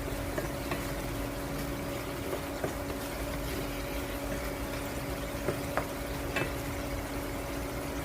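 Kitchen cooking sounds: a steady hum over a low simmering haze, with several sharp clicks of a utensil against cookware, the loudest ones past the middle.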